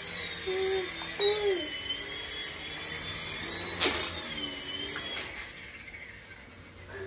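Small toy RC helicopter's electric rotor motor whining in flight, its pitch wavering up and down with the throttle. A sharp knock about four seconds in as it hits the wall, after which the whine dies away as it comes down on the floor.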